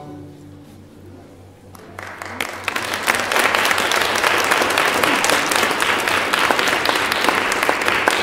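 The last note of a children's violin ensemble fades out, and about two seconds in an audience breaks into applause, quickly building to steady clapping.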